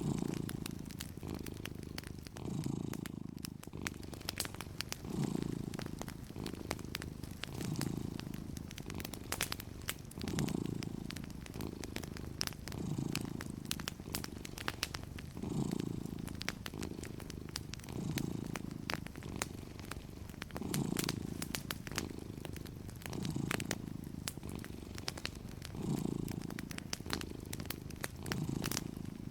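Domestic cat purring steadily, swelling and easing with its breathing about every two and a half seconds, over the small snaps and pops of a crackling wood fire.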